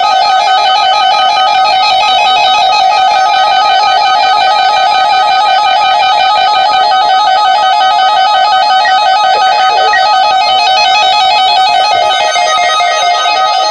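A loud, continuous warbling alert tone from an Emergency Alert System Required Weekly Test. It holds one pitch with a rapid, even wobble and does not change.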